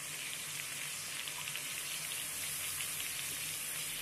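Sliced onions, tomatoes, green chillies and crushed ginger-garlic sizzling steadily in oil in a metal kadai, a constant hiss with fine crackles.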